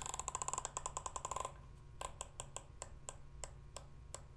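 Arken EP5 riflescope elevation turret being dialled by hand, its detents giving crisp tactile clicks. A fast run of clicks comes first, then about a second and a half in, after a short pause, it slows to single clicks at about five a second.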